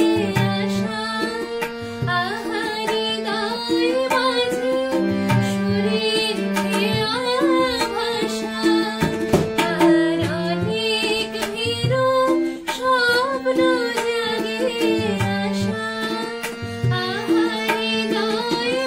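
A woman singing a Bengali song while playing a keyboard, with steady hand-drum percussion accompaniment.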